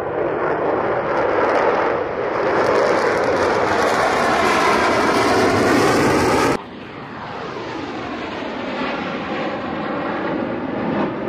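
Jet engines of a four-ship formation of F-16 fighters taking off and passing low overhead: a loud rushing jet noise that swells, its tone sweeping as the aircraft go by. About six and a half seconds in it cuts off abruptly, and a second stretch of jet noise builds up again.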